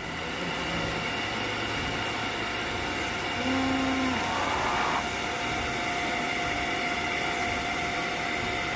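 A small electric motor running steadily with a whirring hum and a few steady whining tones, such as a kitchen appliance mixing fruit, with a brief faint voice about three and a half seconds in.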